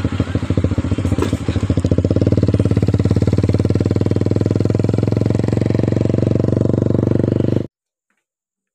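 Motorcycle engine running steadily at road speed, with a fast, even pulse of engine firing. It cuts off abruptly near the end, and near silence follows.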